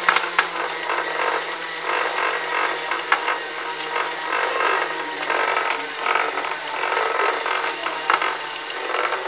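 Bicycle indoor trainer spinning with a steady hum and an irregular rattling, broken by a few sharp clicks: the strange noise the owner is showing from the trainer.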